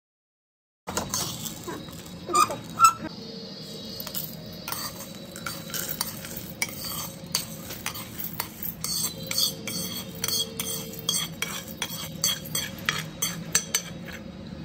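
Steel ladle scraping and clinking against a metal wok as dry-roasted peanuts and chana dal are stirred and swept out of the pan into a steel bowl, the dry grains rattling. It starts after about a second of silence, with two sharp clinks soon after, then steady irregular scraping and clicking.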